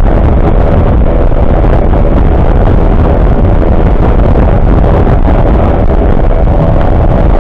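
Two 15 hp outboard motors running steadily at half throttle on a moving fiberglass boat, with a heavy low rumble and rushing noise.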